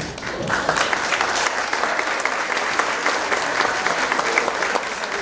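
Audience applauding: scattered claps build to full, steady applause within the first second.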